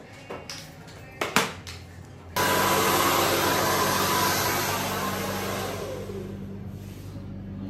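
Handheld blow dryer running on hair: a steady rush of air over a motor hum that starts abruptly about a third of the way in and eases slightly toward the end. Before it there is a single sharp knock.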